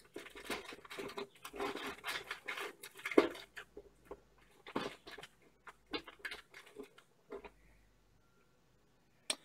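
Rustling and crinkling of an artificial wasp nest's paper-lantern shell being handled, with small scrapes and clicks as its metal supporting rod is worked into the wire rings. The handling noise stops about seven seconds in, and one sharp click comes near the end.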